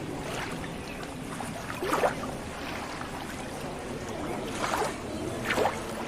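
Steady rush of running water, with brief louder swishes about two seconds in and twice near the end.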